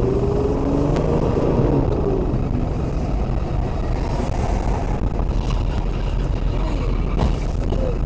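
Steady engine and road noise of a moving car heard from inside the cabin, with faint shifts in engine pitch.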